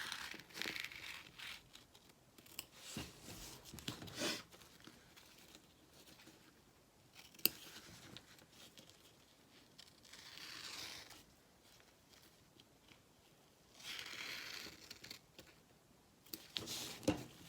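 Embroidery stabilizer being torn away from behind a sewn-in zipper, in several short bouts of ripping with pauses between, and a single sharp click about seven seconds in.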